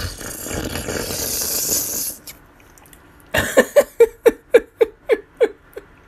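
A person's breathy voice: a long rasping breath for about two seconds, then a run of about nine quick pitched pulses, about four a second, each dropping in pitch, like a breathy laugh.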